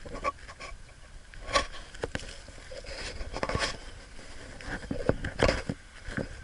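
Irregular scrapes, rustles and knocks close to the microphone, in uneven bursts, the loudest about a second and a half in and again about five and a half seconds in.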